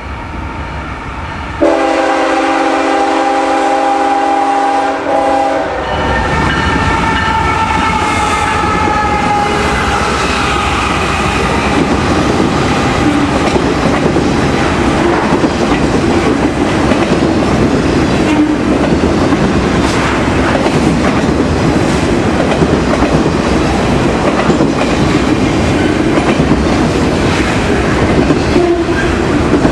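Kansas City Southern diesel locomotive air horn sounds a chord of several notes about two seconds in and cuts off around six seconds. Then the train rolls past with a loud, steady rumble and the clickety-clack of wheels over rail joints.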